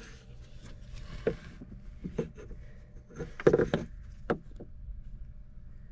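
Handling noise from a camera being lowered into a narrow wooden wall chase: scattered knocks and scrapes against the framing, loudest about three and a half seconds in, over a steady low hum.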